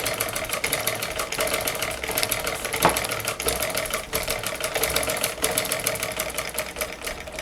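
Shuttle-type sewing machine running steadily, stitching a test seam with a rapid even clatter. The shuttle and driver have just been re-gapped, and the seam checks that the looping underneath the cloth is cured.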